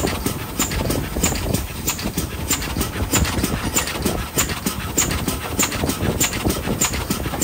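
Exhaust of the GWR Prairie tank No. 5552 working a train: a steady, even chuffing, its strongest beats about twice a second, over the low running noise of the train on the rails.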